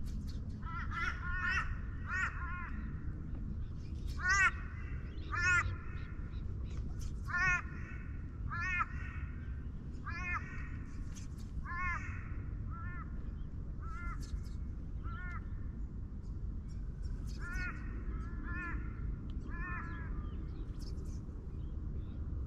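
A crow cawing over and over, about twenty short calls in loose groups of one to five, falling quiet near the end, over a steady low rumble.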